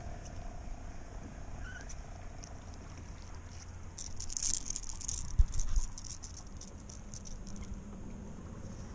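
A hooked seatrout being swung out of the water beside a kayak, with a short burst of splashing and dripping about halfway through, then one sharp knock, the loudest sound.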